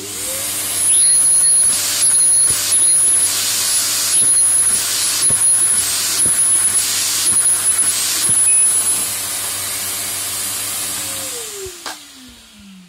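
Vacuum cleaner motor spinning up and running loudly, with air rushing through its hose against a round box in uneven surges and a high whistle that comes and goes. Near the end it is switched off and its pitch falls as it winds down.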